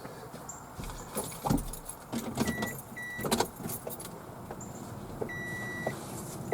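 A car's warning chime beeps three times at one high pitch, the last beep longer. Before and around the beeps come thumps and a jangle of keys.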